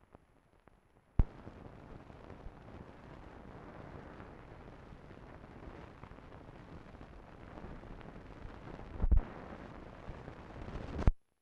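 Hiss and crackle from the blank tail of an old film print's soundtrack. It starts with a sharp click about a second in, has a loud pop near the end, and cuts off suddenly after a last click.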